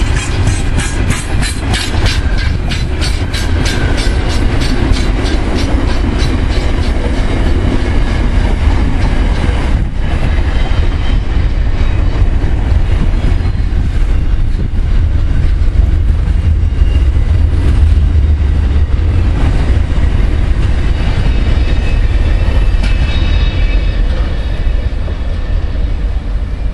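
Loaded container wagons of a freight train rolling past close by: a heavy, steady rumble with a rapid, even clickety-clack of wheels over the rail joints, most distinct in the first several seconds.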